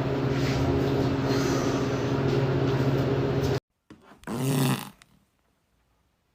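A long, steady, buzzing fart that cuts off suddenly about three and a half seconds in. It is followed by a short, bending fart about half a second later, then near silence.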